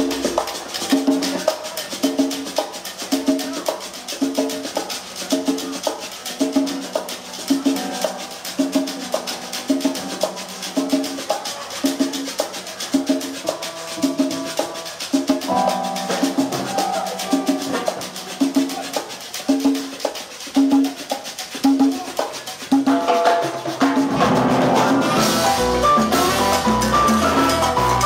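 Live cumbia band at a sound check: a short rhythmic figure with light percussion repeats steadily, then about 24 seconds in the full band comes in louder, with bass and drums.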